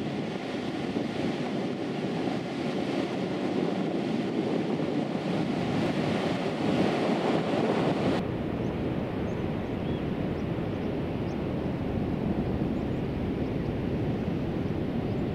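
Surf breaking and washing up a flat sandy beach, mixed with wind buffeting the microphone. The higher hiss drops away suddenly about eight seconds in.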